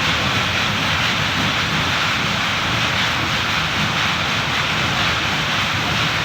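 Gas welding torch flame giving a steady, loud hiss with no break.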